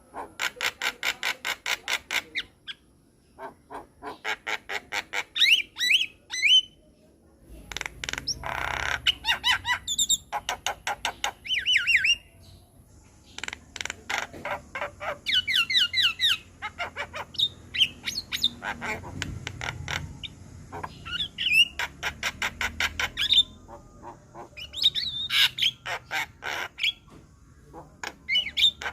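Javan myna singing: runs of rapid, harsh repeated notes at about eight a second, broken by squawks and short rising whistles.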